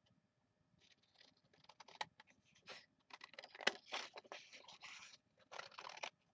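Paper rustling and crinkling with a scatter of sharp clicks, starting about a second in and loudest around the middle: cut-out paper pieces being handled.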